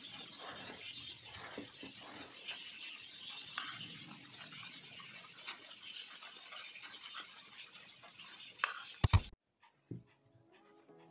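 Indistinct background voices over a steady hissy room noise, with small scraping ticks of a metal spoon in rice on a plate. Two loud sharp clicks come about nine seconds in, then soft music starts near the end.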